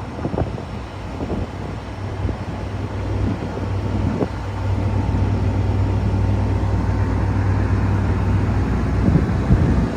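Diesel engine of a Wirtgen W100F cold milling machine running with a steady low hum. It grows louder over the first few seconds, then holds level, with a few scattered knocks.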